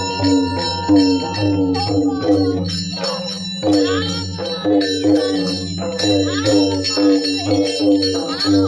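Devotional folk music: a drum beaten in a fast, steady rhythm under continuous ringing metallic tones like brass cymbals or bells.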